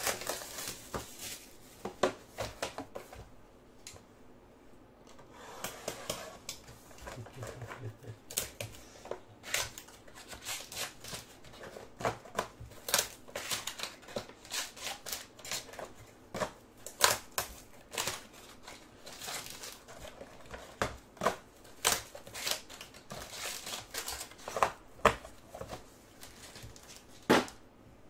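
Plastic wrapping and trading card packs crinkling and crackling in the hands as a box of Topps Museum Collection baseball cards is unwrapped and its packs handled: irregular sharp clicks and rustles, with a quieter spell a few seconds in.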